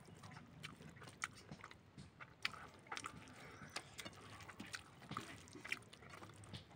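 Close-up chewing of a mouthful of rice and beans: a scatter of short, sharp wet clicks and smacks, faint overall.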